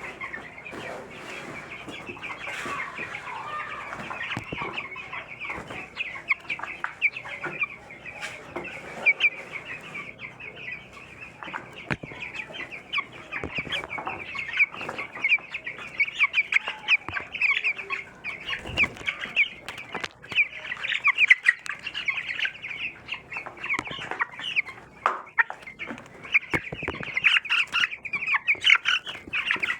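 A flock of young broiler chicks peeping constantly in a brooder, a dense stream of short high chirps. Scattered clicks and knocks sound among them.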